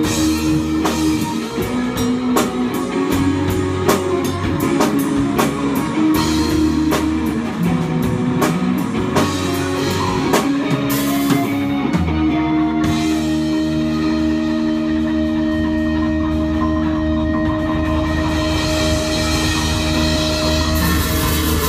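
Rock band playing together: two electric guitars strumming chords over a drum kit. A little past halfway the drum beat stops with a cymbal wash, and the guitars hold ringing chords until the cymbals swell again near the end.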